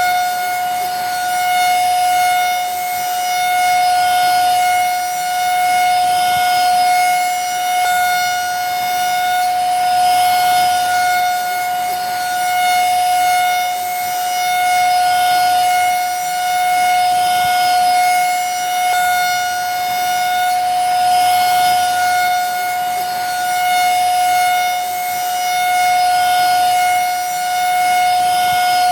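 Vacuum cleaner running steadily, a high motor whine over the rush of air, swelling slightly about every two seconds.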